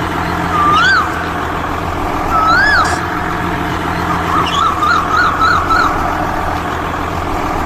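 Truck engine running steadily. Over it come two separate rising-and-falling high calls, about one second and two and a half seconds in, and a quick run of short warbling calls around five seconds in.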